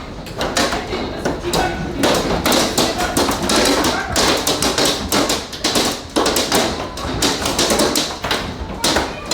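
Large hailstones pelting the house in a dense, irregular stream of hard taps and thuds with no let-up.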